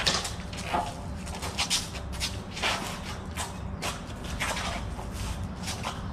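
Irregular short scuffs and rustles from two people moving as they spar: feet on the ground, clothing and breath, a few a second, over a steady low rumble of wind on the microphone.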